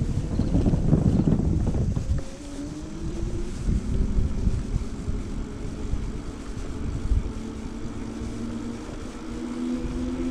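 Riding e-bike: wind buffets the microphone for the first two seconds, then the electric motor whines steadily in a few tones that rise slightly, over a low rumble of wind and tyres on asphalt.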